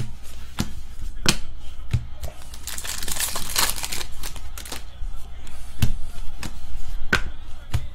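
Foil wrapper of a hockey card pack crinkling as it is torn open, around the middle. Sharp snaps come every second or so as cards are flicked and sorted by hand.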